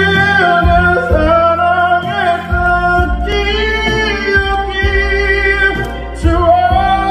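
A man singing through a handheld microphone, holding long, high sustained notes that bend in pitch.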